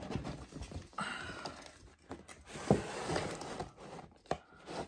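Handling noise from a cardboard doll box being turned over and its end flap opened: rustling and scraping, with a few light knocks.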